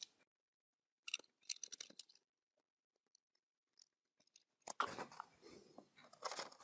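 Freshly sharpened Felco No. 8 pruning shears: faint small metallic clicks as the parts are fitted back together, then from about five seconds in a papery rustle and snipping as the blade cuts into a sheet of paper.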